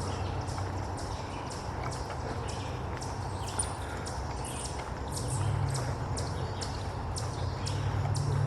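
Footsteps of a person walking on a dirt trail, an even pace of about two steps a second, over a steady low rumble.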